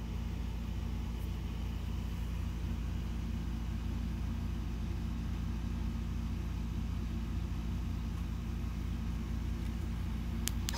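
Air conditioner running steadily in the room, a low hum with a few steady tones. A single click near the end.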